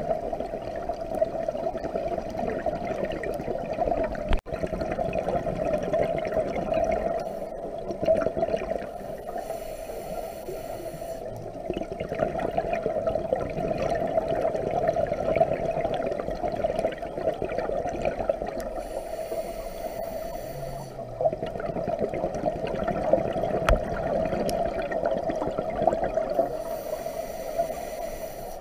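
Underwater sound on a scuba dive: a steady muffled rush of water with the bubbling gurgle of divers' exhaled bubbles, and a brief high hiss about every nine seconds.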